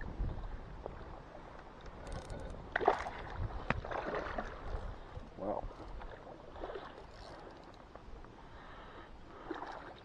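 Lake water lapping and sloshing against the shore, with a few sharp clicks and knocks from handling the spinning rod and reel, the sharpest about three seconds in. Wind rumbles on the microphone at first.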